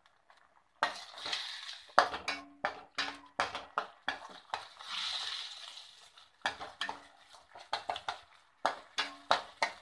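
Steel ladle scraping and clinking against a stainless steel kadai as a thick onion-tomato masala paste is stirred and sautéed, some strokes leaving a short metallic ring. Soft sizzling of the frying masala comes through about a second in and again around the middle.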